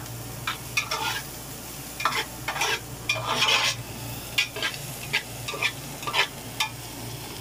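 Slotted metal spatula scraping and stirring diced onions and chillies in an aluminium pot, over the sizzle of the sautéing vegetables. The strokes are short and irregular, with the longest scrape about halfway through.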